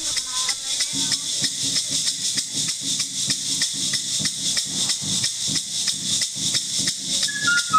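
Kukama carnival band playing Mashakara dance music: maracas shaking, with bass drum and snare drum beating a steady rhythm from about a second in. A flute melody comes in near the end.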